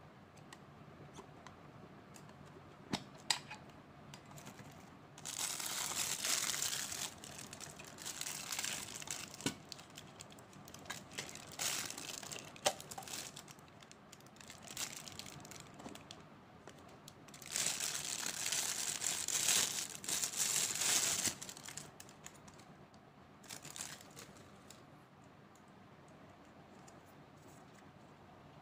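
Plastic watch packaging crinkling and rustling as it is handled and opened, in two longer spells with smaller rustles between, after a couple of sharp clicks from the box about three seconds in.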